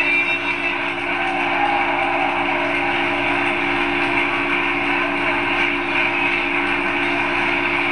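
Large stadium crowd cheering and applauding in an ovation, a loud, steady, dense wall of noise.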